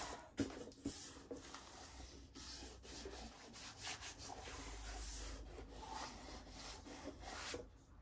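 Hands rubbing and smoothing painter's tape down along the wooden edge of a canvas frame: a continuous soft rubbing.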